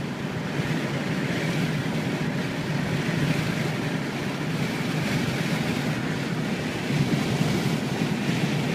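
Steady road and wind noise of a moving car, heard from inside it.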